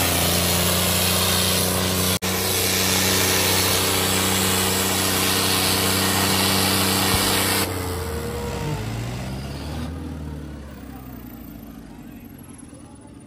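Tractor diesel engines running hard and steady under load in a tug-of-war pull. About seven and a half seconds in the sound drops sharply, with a brief glide in pitch, and then fades away.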